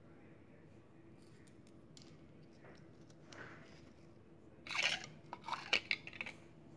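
Quiet room tone, then about two-thirds of the way in a short run of sharp clicks and rustling from plastic Lego bricks and the phone being handled.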